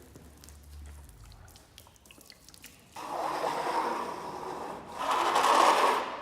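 Freshly sawn oak boards being slid and scraped against each other. There are two rough scrapes, the second one louder.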